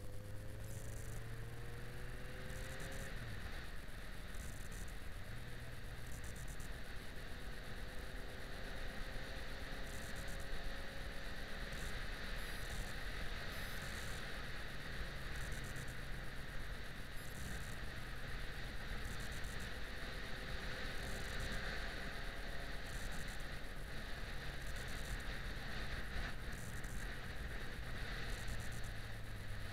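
Yamaha XJ6 Diversion's 600 cc inline-four engine running on the move, a steady low drone with its pitch rising gently a few times, under a constant rush of wind and road noise on the bike-mounted camera.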